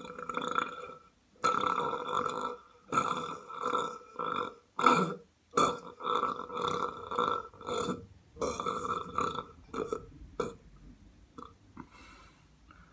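A person belching over and over, about a dozen burps in a row with short gaps between them. Near the end the burps become fainter and further apart.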